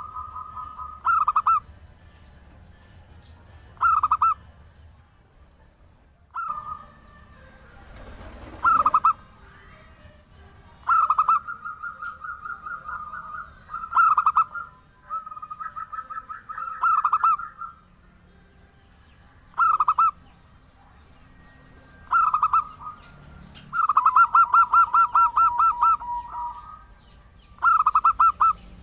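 Zebra dove (perkutut) cooing, the female's call for luring males: short coos repeat every two to three seconds, and a few longer calls break into a quick run of rapid pulsed notes.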